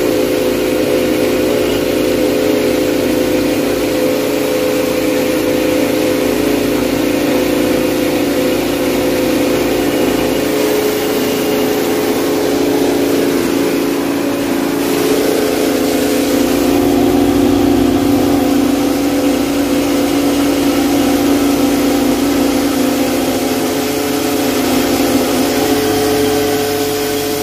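A mini rice mill running steadily, its motor and belt-driven milling head making a constant mechanical hum with a hiss over it.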